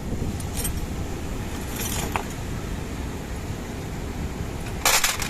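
Brief metallic clinks and jingles of hand tools or engine parts, three times, the last near the end the loudest, over a steady low rumble.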